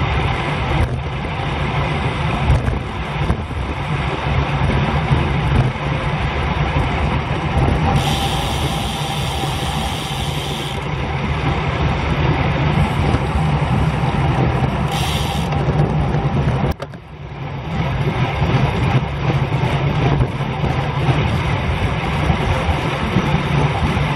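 Steady wind rush buffeting the microphone of a bicycle-mounted camera riding at about 25 mph, heavy and low, with a brighter hiss for a few seconds in the middle and a brief drop about 17 seconds in.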